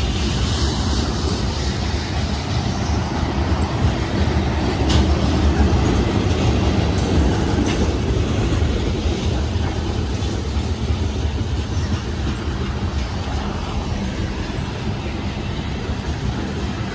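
Loaded freight train cars (covered hoppers, then tank cars) rolling past: a steady rumble of steel wheels on the rails, with a few sharp clicks in the middle stretch.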